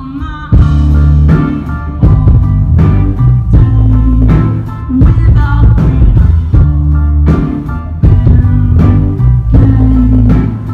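Live rock band playing loud, with electric guitar, heavy bass and a steady drum beat; the full band comes in about half a second in.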